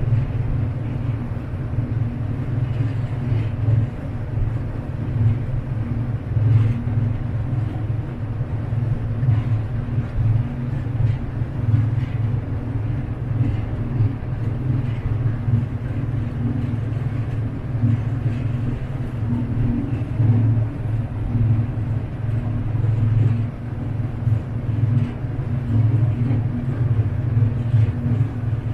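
A passenger boat's engine droning steadily with a low hum, heard from aboard while under way, over a steady rushing hiss of water along the hull.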